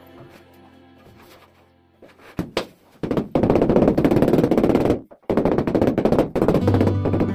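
Rubber mallet tapping rapidly on a large ceramic floor tile to bed it into wet mortar. The quick knocks come in two long runs with a brief break about five seconds in, over background music.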